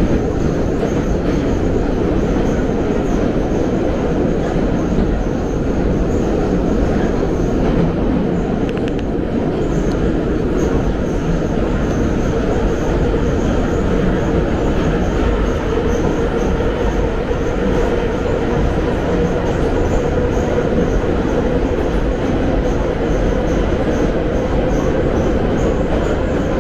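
Metro train running, heard from inside the passenger car: a loud steady rumble of wheels on rails and running gear, with a steady whine over it.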